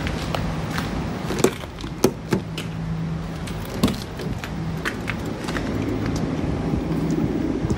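Knocks and clicks of a person climbing into the back seat of a police car, over a steady low rumble of the vehicle.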